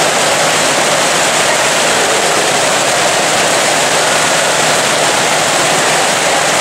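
Steady rush of water from an indoor water park's spray jets and slide flow splashing into the shallow pool.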